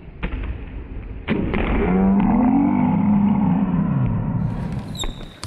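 A basketball dunk slams the rim about a second in, followed by a long excited shout from onlookers that rises and falls in pitch for about three seconds. A couple of sharp knocks come near the end.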